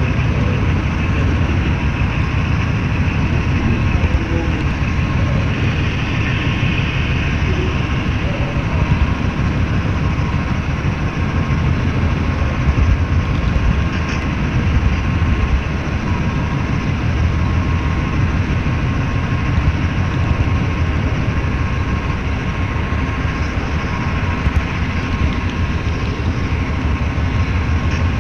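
HO-scale model train rolling along the track, heard from a camera riding on a flatcar: a steady, close rumble and rapid clatter of the small wheels on the rails, with a faint steady tone above it.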